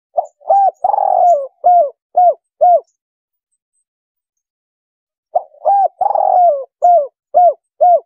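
Spotted dove (tekukur) cooing in its 'kuk 3' call: two identical phrases about five seconds apart. Each is two short coos, one longer drawn-out coo, then three short falling 'kuk' notes.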